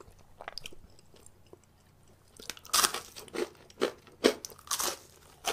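Crisp crunching as a batter-fried piece of Korean street food is bitten and chewed: a quiet start, then about six crunches from a little under three seconds in, roughly one every half second.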